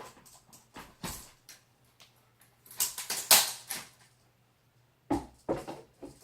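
MagnaCart folding hand truck being handled and unfolded: plastic-and-metal clicks and rattles, a loud clatter in the middle, then a few heavier knocks near the end.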